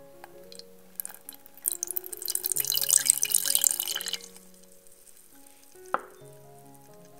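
Milk poured into a pot, splashing from about a second in to about four seconds, over soft background music. A single drip-like tap about six seconds in.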